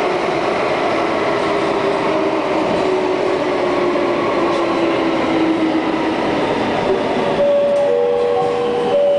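Interior noise of an SBS Transit C751A metro train running through an underground tunnel, a steady rumble and hiss heard from inside the carriage. A faint whine slowly falls in pitch, and near the end a pair of steady higher tones comes in.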